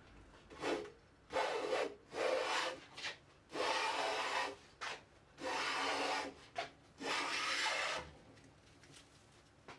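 A hand tool working wood in about seven separate strokes, each lasting up to a second with short pauses between them. The strokes stop about eight seconds in.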